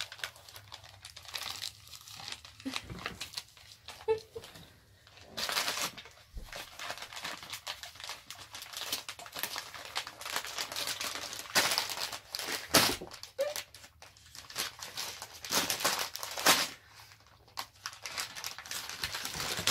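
Wrapping paper crinkling and tearing in irregular bursts as a German Shepherd dog pulls and chews at a wrapped present.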